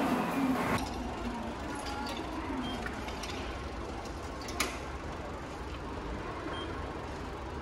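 Subway station concourse ambience: a steady low hum and hiss, with a single sharp click about four and a half seconds in.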